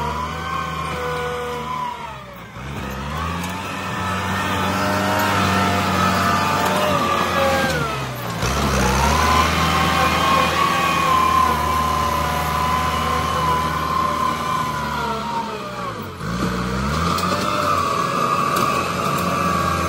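Kubota M8540 tractor's diesel engine running under load as it pushes loose soil with its rear blade. The engine note sags and recovers three times.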